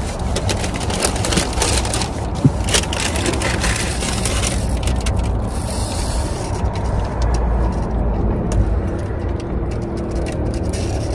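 Close-up eating sounds: crunchy chewing and crackly handling of food and its wrapping, a run of short clicks that is thickest in the first few seconds, with one sharp click about two and a half seconds in. A steady low rumble lies underneath.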